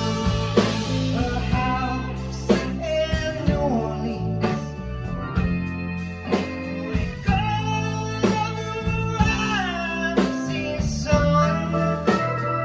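Live band playing a blues-rock groove: drum kit, electric guitar and bass, with a lead melody line over it.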